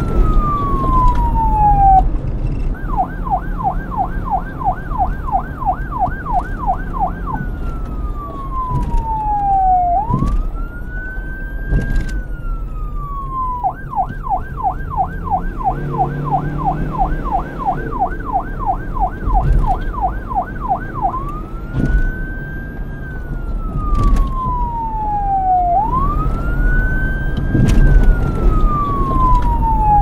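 Electronic police-car siren alternating between a slow wail that rises and falls and a fast yelp of about three sweeps a second, switching to the yelp twice. A steady low wind rumble lies beneath.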